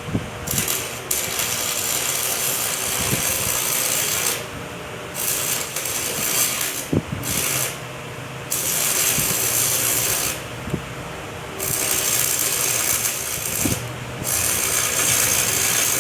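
Arc welding with a Yamato transformer (non-inverter) welding machine: the arc crackles in about five spells of a few seconds, with short breaks between them. The weld carries on drawing current on a newly fitted 60-ampere breaker without tripping it.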